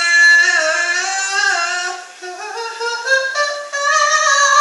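Unaccompanied singing voice holding long notes that glide up and down between pitches, softening briefly about halfway through.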